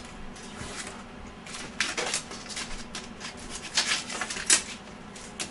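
Irregular metallic clicks and clatters of bolts and bike parts being handled and fitted by hand, with a few louder knocks around two seconds in and again about four to four and a half seconds in.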